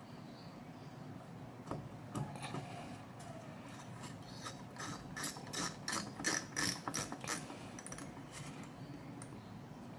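Screwdriver driving a screw into a graphics card during reassembly, with low handling noise and a run of sharp clicks, about three a second, in the middle.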